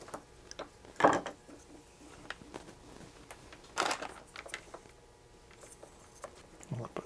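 Small hand tools and parts handled on a wooden workbench: a sharp clatter about a second in, another near four seconds, and light clicks and taps in between.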